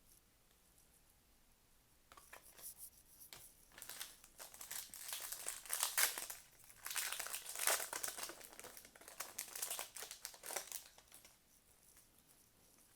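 Plastic wrapper of a Topps Chrome MetaZoo trading-card pack crinkling as it is handled and torn open, in irregular crackly bursts that start about two seconds in and die away near the end.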